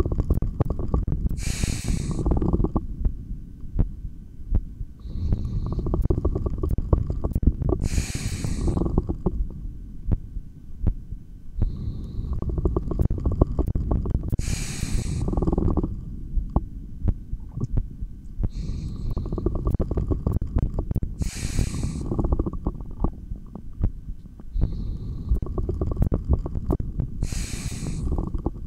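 Slow, deep breathing heard through a stethoscope on the body: about one breath every six to seven seconds, each with a hiss of air, over a dense low rumble of body sounds that includes stomach growling.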